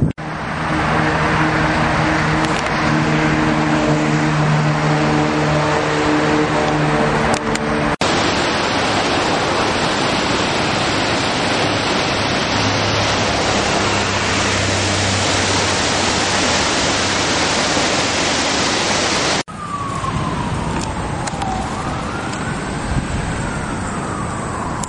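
Steady rushing outdoor noise with road traffic, carrying a low engine hum through the first third. Later an emergency-vehicle siren wails, rising and falling in pitch.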